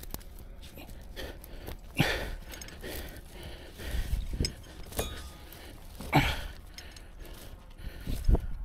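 A man breathing hard in short separate breaths while brush rustles and crunches under his movements, over a low wind rumble on the microphone.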